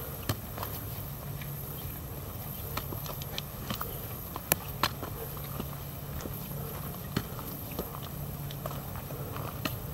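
Footsteps on a rocky dirt hiking trail: irregular sharp clicks and scuffs of shoes on stones and grit, two of them louder about four and a half and five seconds in, over a steady low rumble.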